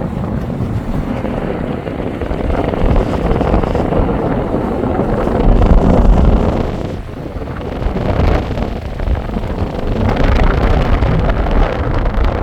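Wind buffeting the microphone over a steady, deep engine rumble that swells about five seconds in, then drops back.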